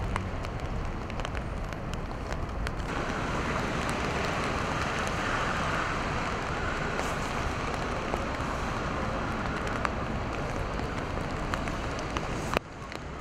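Rain falling on a wet city street, mixed with the steady hiss of traffic, with scattered drops ticking. The hiss grows brighter about three seconds in, and a sharp click near the end is followed by a brief dip in level.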